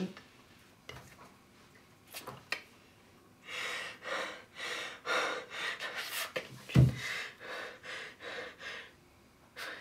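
A man breathing hard and sobbing in distress: after a few quiet seconds come ragged breaths in quick succession, about two a second, with one low thump about seven seconds in.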